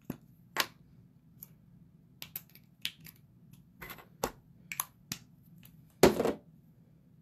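Irregular light clicks and taps of small objects being handled, about a dozen spread unevenly, with one louder knock about six seconds in.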